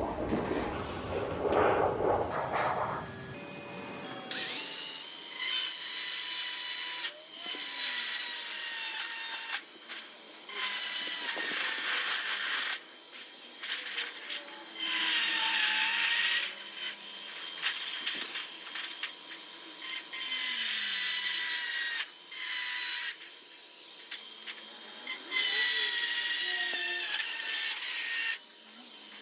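Tool scraping and grating on a sheet of metal in stretches of a few seconds, broken by short pauses, with thin high squeals over it. It starts about four seconds in, after a softer stretch of handling.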